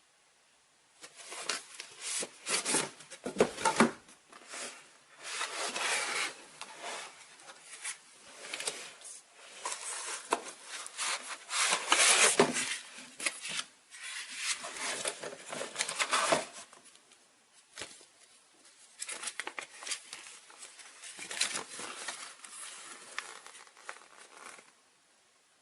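Packaging being handled and opened: irregular crinkling, rustling and tearing with small clicks, starting about a second in.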